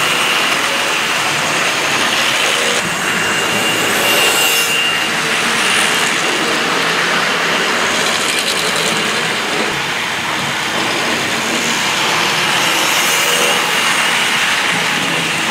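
Tri-ang Hornby OO gauge Class 37 diesel model locomotive hauling Pullman coaches, running smoothly: a steady whirr of the electric motor with the rolling rattle of the wheels on the track.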